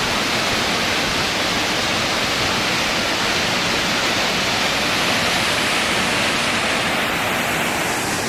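Waterfall rushing: a steady, loud hiss of falling water that eases slightly in its higher range near the end.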